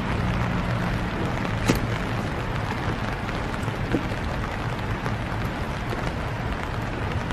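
Steady hiss of winter rain falling, with a low rumble underneath and two sharp ticks, one about a second and a half in and one about four seconds in.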